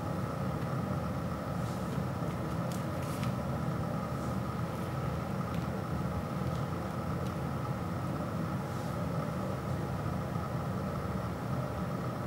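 Steady low rumble and hum of background noise, with a few faint light clicks of a vinyl record and its paper sleeve being handled.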